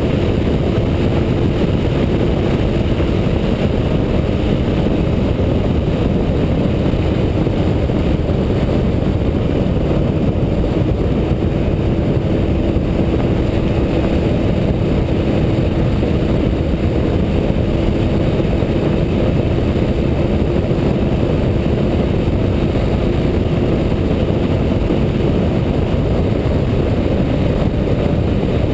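Yamaha snowmobile engine running steadily at cruising speed, a single even engine note under heavy low rumble from wind on the microphone. No change in pitch or level throughout.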